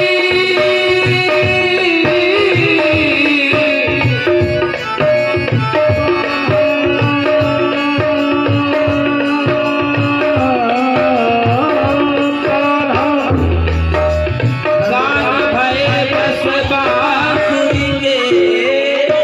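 Indian devotional song music: a steady tabla beat under a held, gliding melodic line, with a heavier low drum boom about two thirds of the way through.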